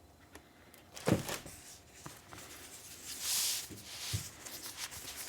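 Unboxing handling of a keyboard kit's packaging: a short thump about a second in, small clicks, and a soft hissing rustle of packing material for about a second midway.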